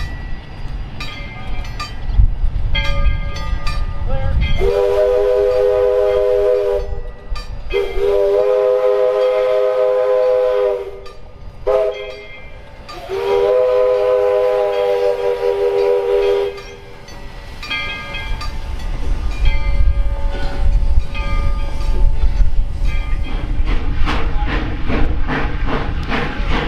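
Steam whistle of Virginia & Truckee No. 25, a 4-4-0 steam locomotive, blowing the grade-crossing signal: two long blasts, a short one and a final long one. Before and after the whistle comes the rumble and rhythmic clatter of the train rolling over the crossing.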